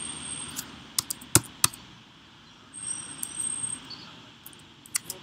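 Computer keyboard keys being typed: a quick run of about four sharp clicks a second into the sound, then another run starting near the end, with a soft hiss between them.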